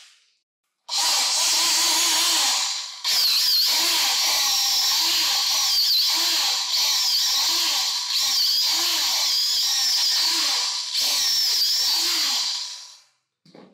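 Old aluminium-bodied Makita drill, converted from 100 V mains to an 18 V battery, running and drilling into a wooden board. The motor whine wavers as the bit bites. It starts about a second in, pauses briefly a couple of times, and stops near the end.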